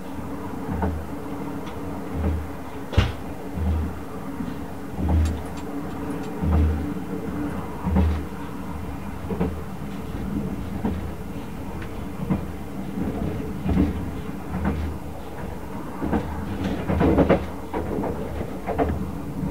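Ride noise inside a 24-series sleeper coach running at speed: a steady rumble with a low, regular thump from the wheels crossing rail joints about every second and a half. There is a sharp click about three seconds in and a few rattles and clicks near the end.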